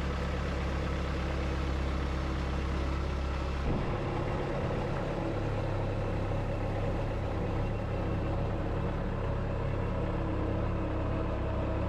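Bobcat S185 skid steer's turbo diesel engine running steadily; about four seconds in its note steps up and it drives forward past.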